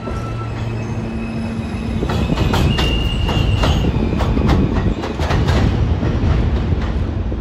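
New York City subway train running through the station, a steady low motor hum giving way to louder running. From about two seconds in its wheels clack over the rail joints, with a brief high wheel squeal about three seconds in.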